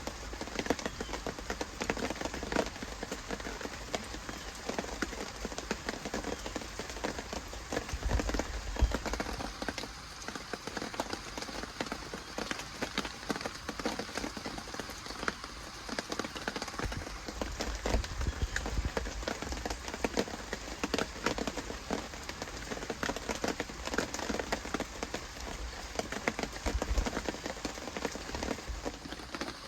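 Rain falling steadily, a dense stream of small drop hits.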